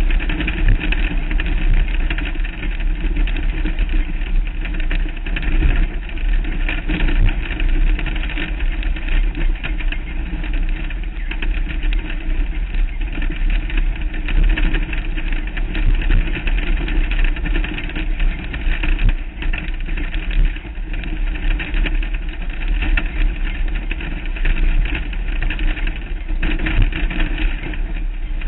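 Off-road race vehicle's engine running steadily while driving over a rough desert dirt track, heavy wind noise on the mounted microphone and scattered knocks from the rough ground.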